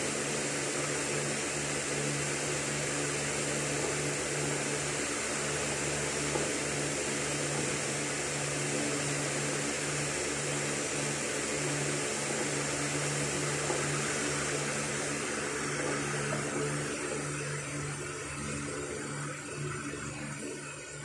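AM radio receiver tuned to a station that has not yet signed on, giving a steady hiss of static with a low hum under it. The hiss thins out and gets quieter near the end.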